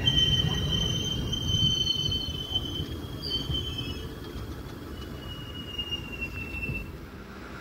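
A passenger train's steel wheels squealing against the rails in thin, high, wavering tones over the low rumble of the moving coaches, the whole sound slowly fading.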